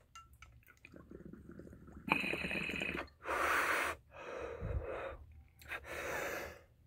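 A man breathing out hard in four separate puffs, exhaling after a dab from a glass rig.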